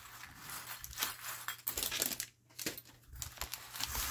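Bags of small craft embellishments being pushed aside and handled: crinkling rustles with scattered light clicks and taps of small pieces.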